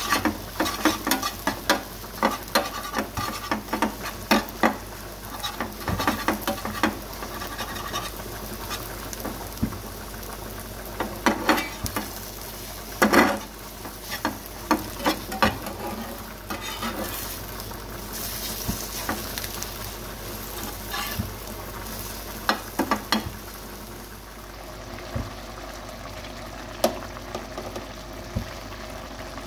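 Stir-frying: a spatula repeatedly scraping and knocking against the pan over a steady sizzle of frying food. The strokes thin out in the last few seconds.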